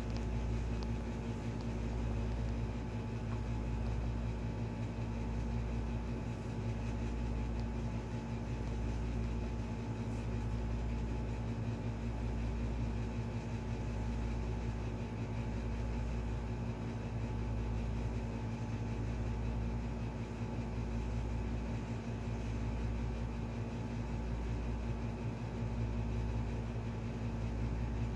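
A steady mechanical hum with a low rumble that swells and fades about every one and a half to two seconds.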